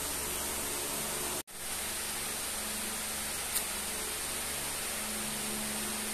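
Steady hiss with a faint low hum underneath. It cuts out for an instant about a second and a half in, and there is a faint click a little after three and a half seconds.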